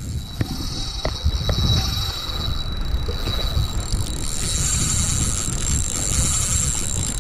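Fishing reel being cranked to bring in a cast lure, giving a thin steady high whine that grows stronger after the first few seconds, over wind rumbling on the microphone.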